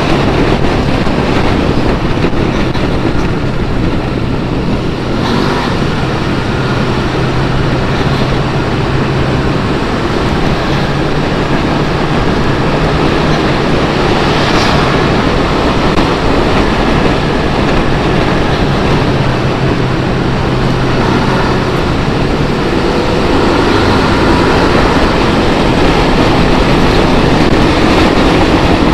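A motorcycle riding at steady cruising speed: a loud rush of wind noise on the microphone over the engine's low, steady hum.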